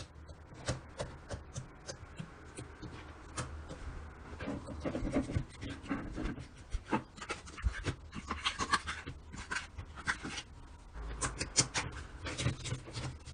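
Hands squishing and stretching slime, giving irregular sticky clicks and small popping sounds in quick clusters.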